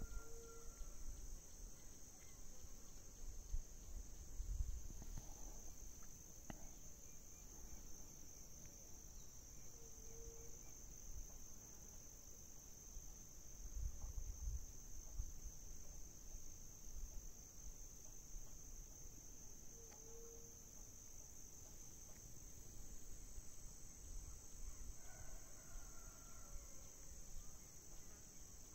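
Faint, steady high-pitched trilling of insects. Brief low rumbles come and go underneath, and three short calls sound about ten seconds apart.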